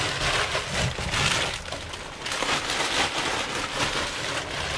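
Snack chip bags and the plastic bag holding them crinkling and rustling as they are handled, without pause.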